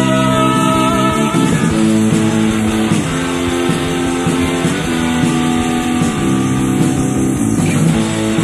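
Post-punk song led by guitar, playing sustained chords that change about every one and a half seconds.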